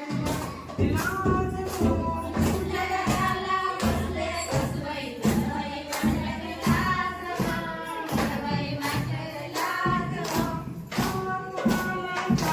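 Group singing a Konkani fugdi folk song, with a steady beat of sharp claps or percussion strikes about two a second.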